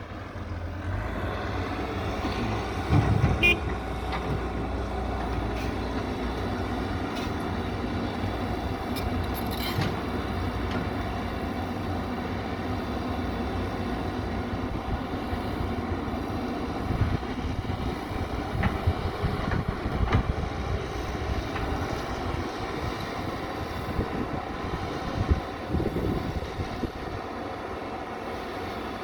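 Excavator's diesel engine running steadily, with occasional knocks mixed in.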